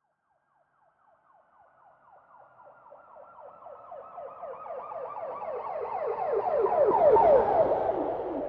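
Police car siren in a rapid yelp, approaching from silence, passing about seven seconds in and starting to recede. As it passes, the siren's pitch drops and the vehicle's low road rumble comes through.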